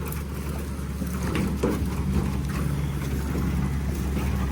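Diesel engine of heavy equipment running steadily at a low, even pitch, with scattered knocks and rattles from the machine moving over rough ground.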